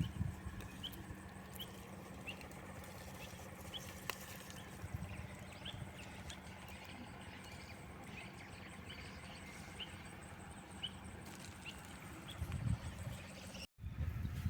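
Faint outdoor ambience with a small bird chirping repeatedly, short high chirps roughly once a second, over a low steady hum.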